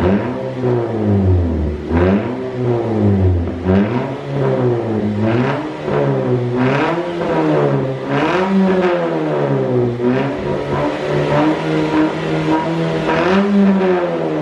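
Toyota Yaris four-cylinder engine revved in repeated short blips, about one every second and a half, each rising and falling back toward idle. It is heard through an NDK Pro-Street aftermarket muffler and Drag S resonator on the stock header, giving a dry bass exhaust note.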